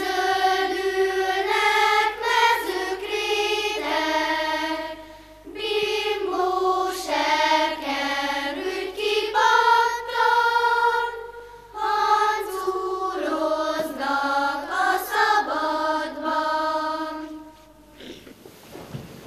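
Children's choir singing in phrases of held notes with short breaks between them; the singing stops near the end.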